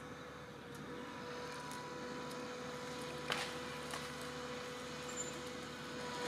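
Cable logging machinery running steadily with an even mechanical hum and whine, growing slowly louder; a sharp click about three seconds in.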